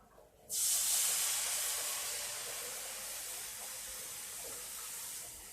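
A cup of milk poured into a hot pan of gram flour (besan) roasted in ghee, hissing and sizzling as it hits the hot fat. The hiss starts suddenly about half a second in and slowly fades as the pan cools.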